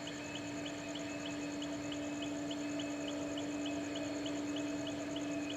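Night insects, such as crickets, chirping in an even rhythm of about four chirps a second, over a steady low hum.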